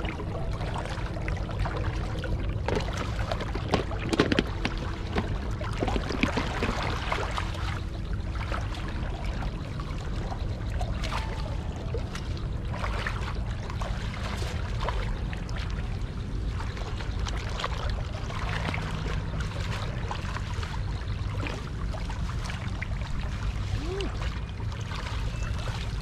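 People wading through shallow pond water, with repeated sloshing and splashing around their legs over a steady low rumble.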